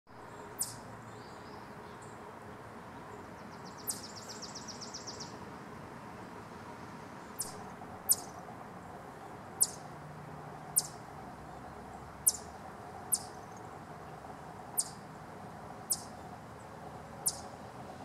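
Eastern chipmunk giving its clucking alarm call: a long series of short, sharp, high-pitched notes, about one every one to one and a half seconds, signalling alarm.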